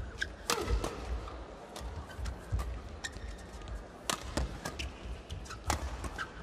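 Fast badminton doubles rally: about ten sharp racket cracks on the shuttlecock at uneven intervals, the loudest about half a second in, about four seconds in and near the end. Short shoe squeaks and footwork thuds on the court mat sound between the hits.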